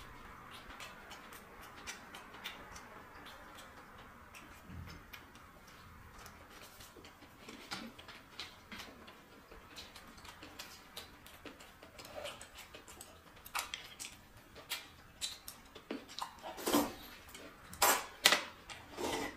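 Close-miked eating sounds: chewing and small wet mouth clicks, then a run of loud slurps of instant noodles near the end.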